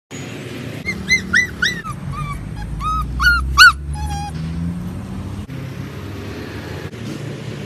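A puppy stuck in a drain yelping and whimpering in distress: about ten short, high, arching cries in quick succession over some three seconds, the last few loudest, then stopping. A steady low rumble lies underneath.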